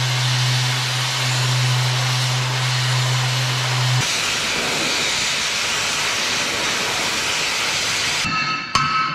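Oxy-fuel cutting torch hissing steadily as it cuts through a steel frame, with a low steady hum for the first four seconds. Music with struck mallet percussion starts near the end.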